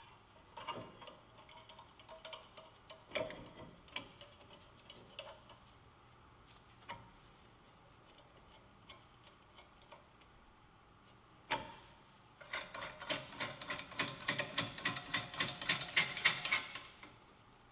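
Metal clinks and taps as a hub puller is fitted to the front wheel hub, a sharp knock about eleven seconds in, then a hand ratchet clicking rapidly for about four seconds as the puller's screw is run in against the stuck hub.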